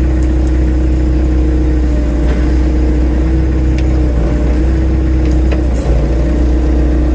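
Genie GTH-5519 telehandler's diesel engine running steadily with a constant hum, while the machine sets its forks down.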